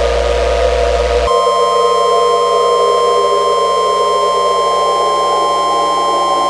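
Weather-radio warning alarm tone: a single steady electronic beep that starts about a second in and holds, marking the start of an emergency alert. Beneath it run slowly sliding lower tones, and a low hum that stops as the beep begins.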